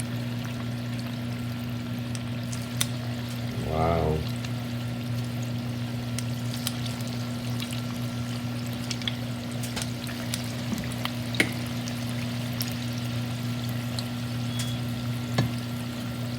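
Chicken balls deep-frying in hot oil on medium heat: a steady sizzle with scattered small pops and crackles, over a steady low hum.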